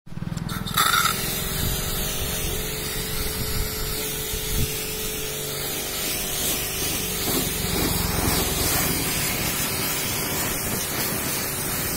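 Pressure washer jet spraying water onto a car's painted bodywork and wheel, rinsing off foam. It is a steady hissing spray with a constant machine hum underneath, and it comes on strongly about a second in.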